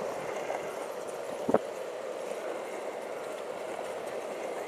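Longboard wheels rolling steadily over pavement, with a single sharp knock about a second and a half in.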